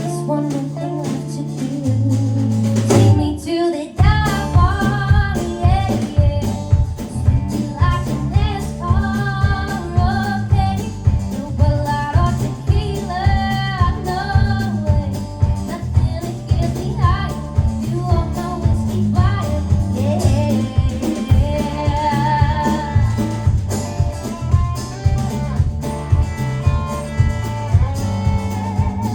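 Live country-style band playing. Held bass notes give way about four seconds in to a steady beat on drums and bass, with guitar and a melody line over it.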